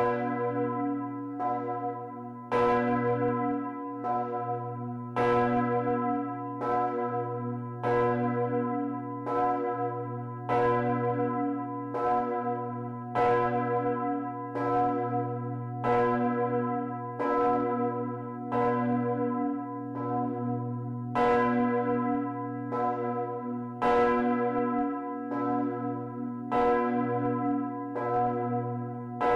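A 2.3-tonne cast-steel church bell by Bochumer Verein, swung by hand with ropes, heard close up in the bell chamber. The clapper strikes about every 1.3 seconds, and every other stroke is louder as it hits alternate sides of the bell. A low hum rings on between the strokes.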